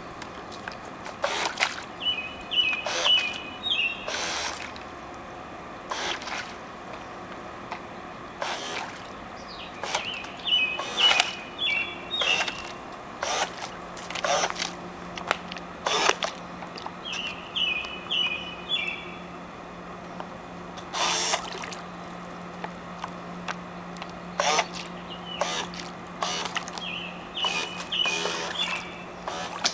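Small electric motors of a remote-controlled model boat switched on and off in short bursts, the propellers churning the water of a small pool. Brief clusters of high whining tones sound now and then among the bursts.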